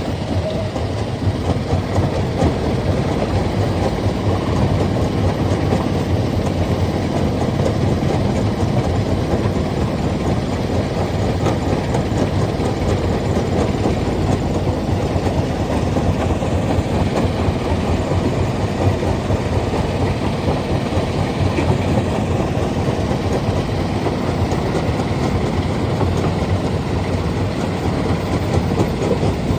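Stone crusher machine running steadily, a continuous dense rattling rumble of rock being crushed.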